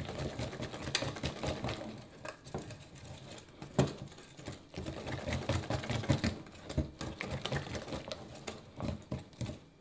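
A whisk beating thick chocolate cupcake batter in a bowl: a fast, uneven run of ticking and scraping strokes against the bowl as the flour is worked in.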